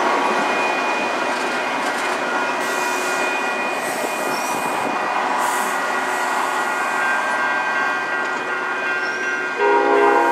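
Metra bilevel commuter cars rolling past at speed, a steady rush of wheel and track noise with a thin high whine over it. About nine and a half seconds in, a train horn sounds loudly, a chord of several tones.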